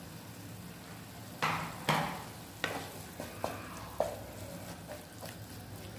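A wooden spatula stirring thick tomato curry in a non-stick frying pan, knocking and scraping against the pan about six times in quick succession, with the curry sizzling faintly underneath.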